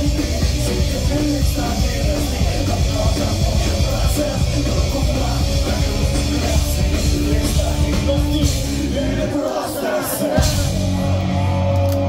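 Pop-punk band playing live and loud, a dense mix of band and voices. Near the end the bass and drums drop out for about a second, then the full band crashes back in.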